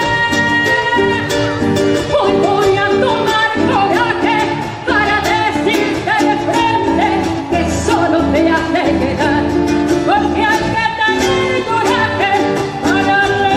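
Latin American popular song playing: a lead melody over a steady percussion beat.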